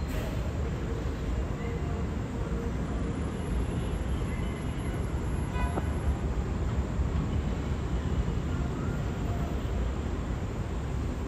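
Steady low rumble of an elevated subway train approaching slowly on the track.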